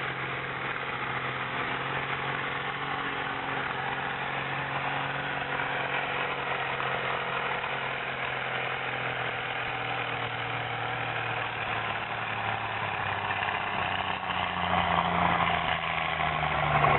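Turbocharged pulling tractor's engine running under load as it drags a weight-transfer sledge, a steady drone that rises a little in pitch and grows louder about two-thirds of the way through.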